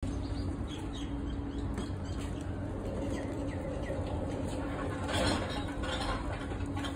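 Small birds chirping in short, high, falling notes over a steady low hum, with a louder burst of rustling noise about five seconds in.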